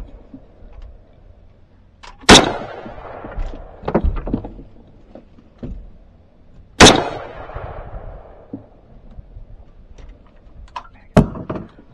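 Three rifle shots at hogs, spaced about four and a half seconds apart, each followed by a trailing echo. Fainter knocks and clatter fall between them.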